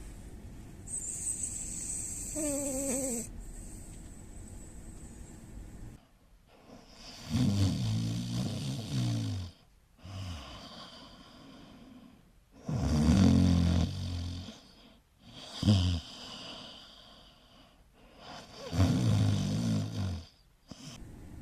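Snoring: four loud, buzzy snores a few seconds apart, the third one short, after a quieter opening stretch with a brief rising whistle.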